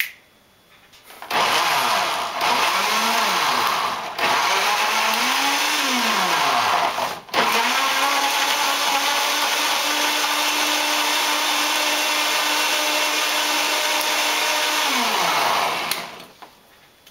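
Countertop blender puréeing roasted tomato, onion, garlic and chile. The motor starts about a second in and runs in three short spells, its pitch rising and sagging as the chunks catch. It then runs steadily at one pitch for about eight seconds and winds down near the end.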